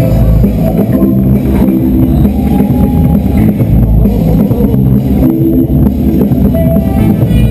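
Loud dance music with heavy bass and a steady beat, the battle music the dancer is moving to.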